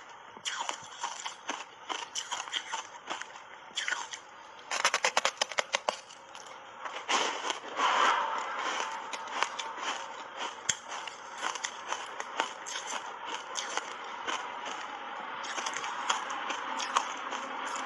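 Matcha-powder-coated block ice being bitten and chewed right at a clip-on microphone: a steady run of sharp crunches and crackles, with a dense burst of crunching about five seconds in.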